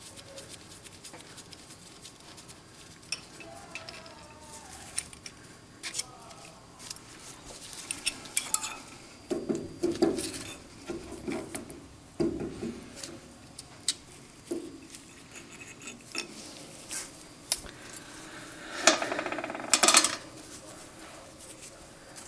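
Irregular metal clinks and clanks of a wrench on the compound rest's nuts and of the lathe's compound rest and quick-change tool post being handled on the cross slide. Louder clanks come in clusters about ten seconds in and again near the end.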